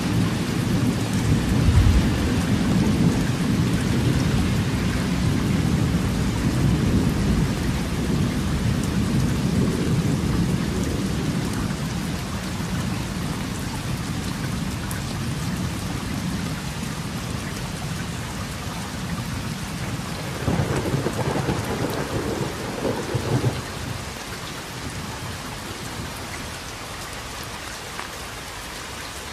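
Steady rain with rolling thunder: a long low rumble, loudest about two seconds in, slowly fades over the first half, then a shorter rumble comes about two-thirds of the way through, leaving only the even hiss of the rain near the end.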